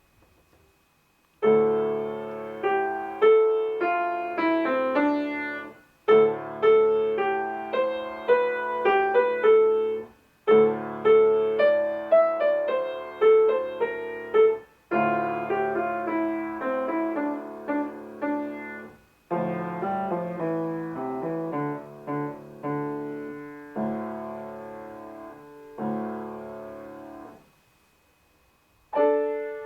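Solo keyboard-type instrument playing a lively folk-style tune over a held drone bass, like a bagpipe imitation, in phrases of about four seconds with short breaks between them. Near the end the music stops for about a second and a half, then a new sustained chord begins.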